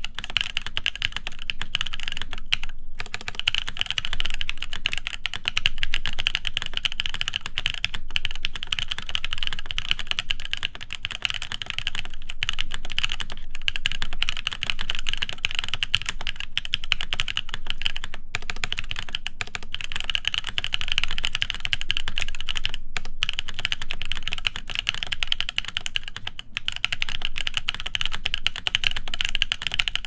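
Fast, continuous typing on a CannonKeys Devastating TKL mechanical keyboard with lubed Cherry Blossom linear switches, an FR4 plate and PBT keycaps, in a case with no foam. A few brief pauses break the stream of keystrokes.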